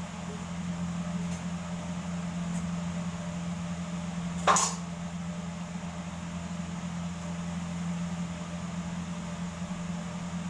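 A steady low mechanical hum, with a single sharp knock or clink about halfway through that rings briefly.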